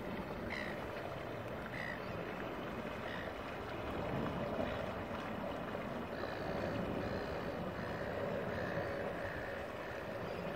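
Motorboat under way: its engine running steadily, with the rush of water and wind around the hull. It gets a little louder about four seconds in.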